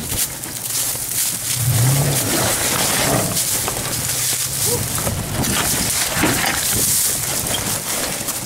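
Toyota Tacoma crawling over rocks: its engine rumbling at low revs, swelling briefly about two seconds in, with rock and gravel crunching and knocking under the tyres over a steady rushing hiss.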